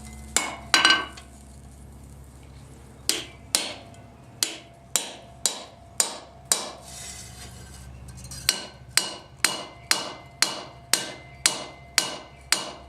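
Hand hammer striking steel on an anvil, about two blows a second in runs separated by short pauses, each blow ringing briefly.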